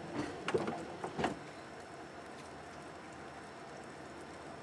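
Three short knocks in the first second and a half, then a steady faint hiss.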